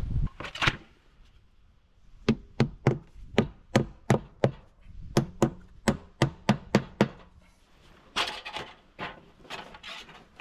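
Claw hammer driving nails through sheet metal into a wooden stair post: a quick run of about sixteen sharp blows, roughly three a second, with a slight metallic ring. Near the end come a few rougher, irregular knocks.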